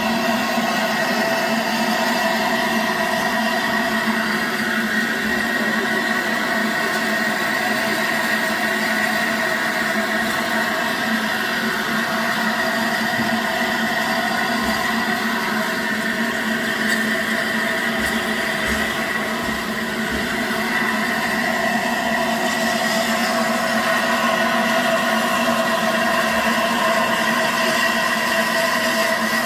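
The Flying Scotsman, an LNER A3 Pacific steam locomotive, standing in steam at close range: a steady hiss with a constant mechanical hum that holds the same pitch throughout.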